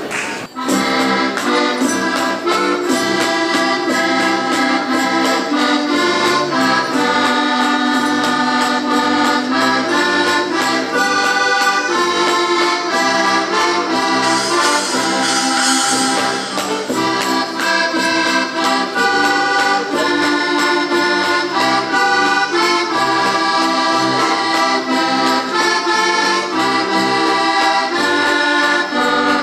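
Heligonkas (Slovak diatonic button accordions) and a piano accordion playing a folk tune together, with a pole percussion instrument struck along with a stick; the music starts about half a second in.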